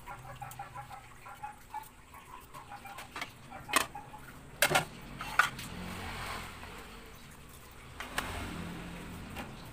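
Ceramic plates and dishes knocking sharply against a countertop a few times as they are handled and set down. At the start there is a quick run of short repeated calls from an animal.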